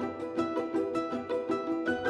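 Background music carried by quick, short plucked-string notes.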